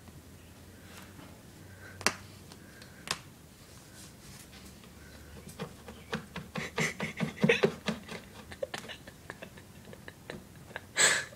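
Rubber flip-flop knocking and scraping against a wooden cabinet and floor as a ferret drags it underneath: a couple of single taps, then a rapid flurry of clicks and knocks in the middle, and a brief rushing noise near the end.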